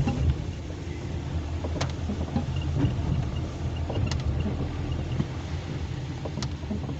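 Steady low rumble of a car's engine and tyres heard from inside the moving car, with a short light click about every two seconds.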